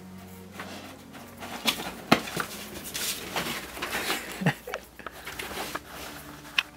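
Pit bull lunging at a fly on a window, her claws clicking and scrabbling on the windowsill and her snaps and bumps knocking against the glass. It makes a busy run of sharp clicks and knocks with a few much louder ones.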